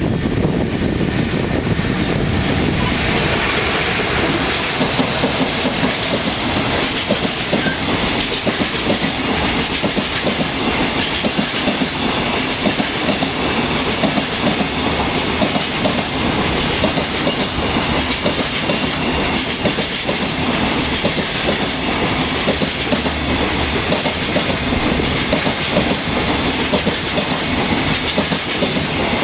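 Long freight train running past close by, its wagon wheels clattering steadily over the rail joints without a break.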